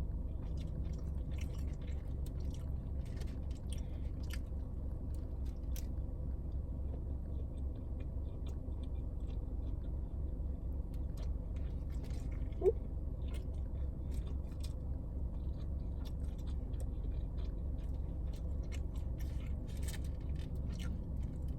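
Close-up chewing and biting of fast food, with small wet mouth clicks, over a steady low hum. A brief rising squeak-like tone stands out a little past halfway.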